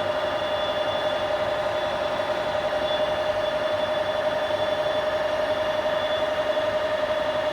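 Heidenreich & Harbeck Hanseat 480 centre lathe running steadily under power, its spindle drive giving a constant mid-pitched whine over an even mechanical hum.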